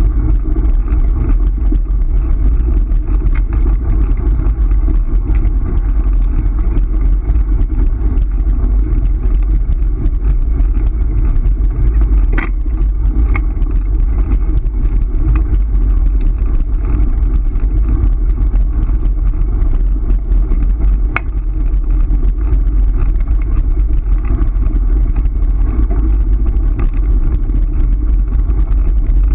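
Dog scooter wheels rolling over a gravel road, a loud steady rumble with a few sharp clicks, the clearest about twelve and twenty-one seconds in.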